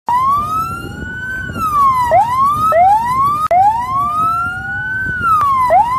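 Electronic vehicle siren wailing. Its pitch sweeps up, holds and falls back every second or two, and it is cut short and restarted low several times, with a second, lower siren tone overlapping in places. Road and engine noise runs underneath.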